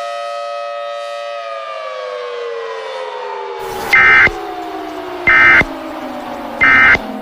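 A warning siren's chord of several tones holds steady, then slowly winds down in pitch. Over it come three short, shrill data bursts about 1.3 seconds apart: the Emergency Alert System end-of-message codes that close the tornado warning.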